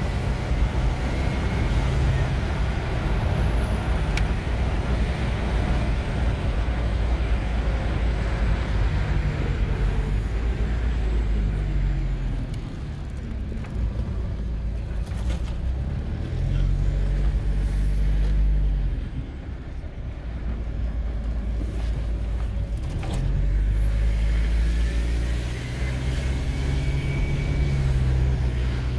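Car engine and road noise heard from inside the cabin while driving, the engine note rising and falling several times as the car speeds up and slows down.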